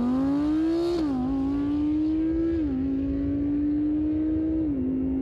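Audi R8 Plus's 5.2-litre V10 at full throttle under hard acceleration. The engine note climbs and then drops sharply at three quick upshifts: about a second in, about halfway, and near the end.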